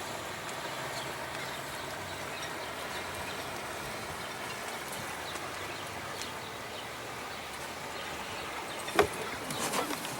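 Steady hiss of wind and water around a sailboat gliding slowly under sail, engine off. A single sharp knock comes about nine seconds in, followed by a few light clicks and rustles.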